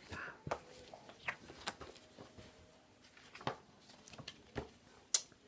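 Faint handling noise: a few scattered light clicks and taps about a second apart, with a soft rustle at the start.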